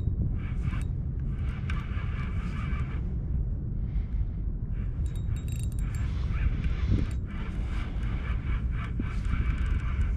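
Wind rumbling and buffeting on the microphone, with a patchy hiss higher up.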